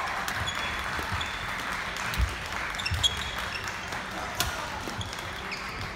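Badminton doubles rally: several sharp racket strikes on the shuttlecock, with sneakers squeaking on the wooden court floor and voices chattering around the hall.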